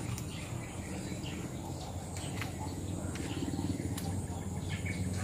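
Quiet outdoor ambience: faint animal calls over a steady low drone.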